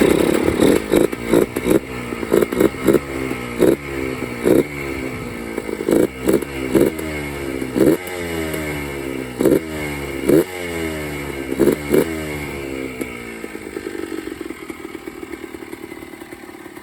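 Yamaha Blaster's 195cc two-stroke single-cylinder engine, freshly rebuilt top end, revving up and down in a quick string of short throttle blips with sharp loud spikes, then dropping to a quieter, lower idle about three-quarters of the way in. It is not yet holding a steady idle: the idle is still being set and it runs rich.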